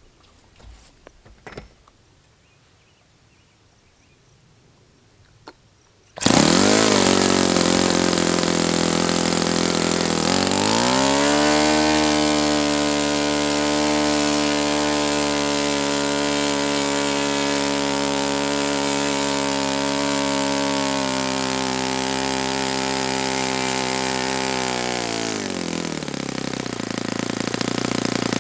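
Saito FA-72a four-stroke glow engine bursting into sound suddenly about six seconds in, dipping in pitch, then climbing to a steady high-speed run. Near the end its pitch falls away. A few faint clicks come before it starts.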